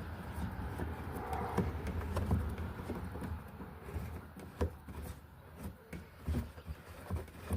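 Scattered light clicks and taps of hands working plastic parts as the taillight's retaining knob is hand-tightened, over a low steady hum.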